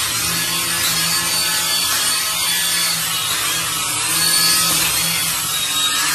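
Small electric motor and twin stacked rotors of a toy flying action figure whirring steadily as it hovers and flies.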